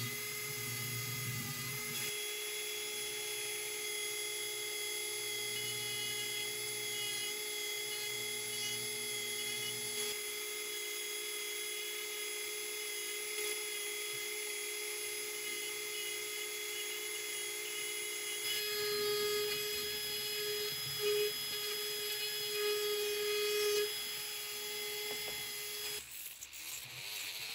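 Dremel 4000 rotary tool on a flex shaft running at steady speed, its sanding drum grinding against a wooden carving with a steady whine. It gets a little louder about two-thirds through and cuts off shortly before the end.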